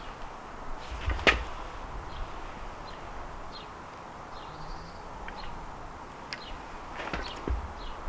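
Small clicks and knocks from handling plastic motorcycle wiring parts, with one sharp click about a second in and a few more near the end. Faint bird chirps repeat about once a second in the background.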